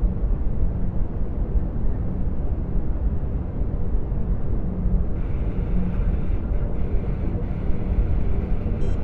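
Sci-fi starship ambience of a Venator-class Star Destroyer in hyperspace: a steady deep rumble of engines and hull, with a faint higher hiss and tones joining about five seconds in.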